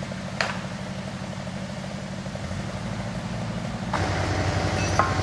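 An engine idling steadily, with a sharp click about half a second in. About four seconds in it gets louder and a steady whine joins it.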